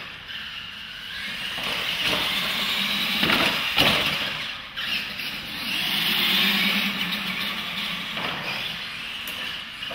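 Two electric R/C monster trucks racing on a concrete floor, their motors and gears giving a high whine that swells and fades as they accelerate past and run away. There is a sharp thump a little under four seconds in, as a truck comes off a ramp.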